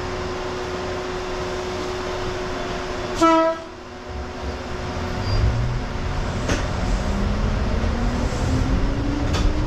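Electric commuter train at a station: a steady hum while it stands, a short toot of its horn about three seconds in, then it pulls away, with a low rumble building and the traction motors' whine climbing in pitch as it gathers speed.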